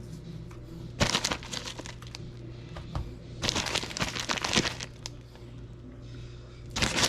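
Three short bursts of crinkling, rustling handling noise over a steady low background of music.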